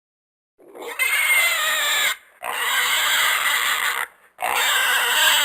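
A farm animal giving three long, harsh squealing calls, each lasting one to two seconds, with short breaks between them.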